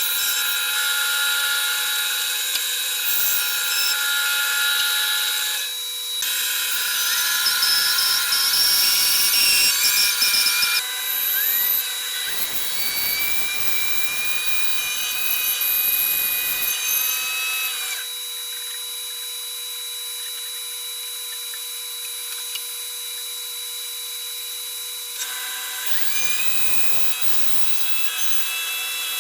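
Bandsaw running and cutting through a thick sycamore block: a steady motor hum under cutting noise that changes abruptly several times, louder for the first half and quieter later.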